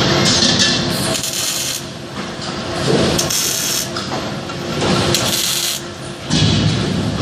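Machinery of a robotic welding line for water heaters running, with a steady hum and a short burst of hissing about every two seconds.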